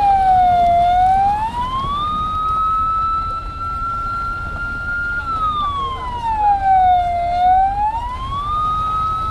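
A siren holding a high tone that twice sweeps down and climbs back up, about six seconds apart, over a steady low rumble.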